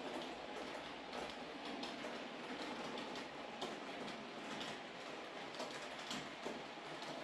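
H0-scale model freight train rolling along the track: a steady rolling rattle of the wagons' wheels on the rails, with scattered small clicks.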